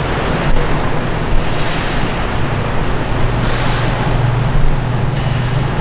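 A loud, steady rushing noise with the low hum of a motor vehicle's engine underneath: road traffic.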